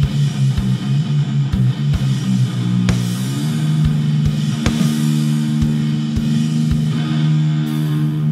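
Heavy metal music: distorted electric guitar chords held long over slow, irregular kick drum hits, with the chord changing about three and a half seconds in.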